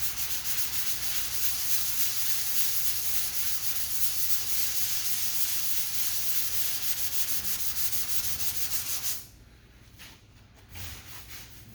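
Sandpaper on a soft sanding pad rubbed lightly back and forth over lacquer primer on a dent repaired with body filler, a steady hiss that stops about nine seconds in and briefly returns near the end.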